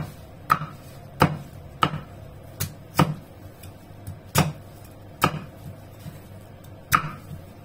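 A cleaver chopping vegetables, first a green gourd and then a carrot, on a thick round wooden chopping block. The sharp chops come irregularly, roughly one every half second to second, about a dozen in all, some louder than others.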